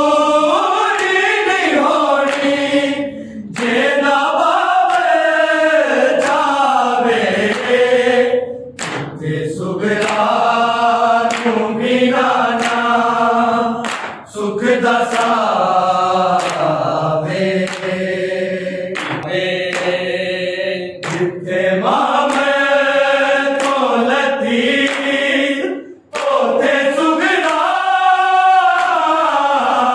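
Group of men chanting a Punjabi noha without instruments, voices in unison on long rising and falling phrases with brief breaks between lines. Sharp strikes mark a steady beat through it about once a second, the chest-beating (matam) of a matami sangat.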